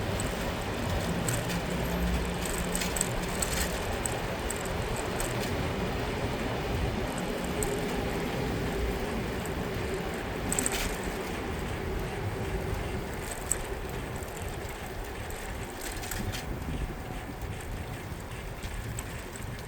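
City street sound heard from a moving bicycle: a steady wash of wind and road noise, with a low vehicle rumble in the first couple of seconds and a few short sharp ticks later on.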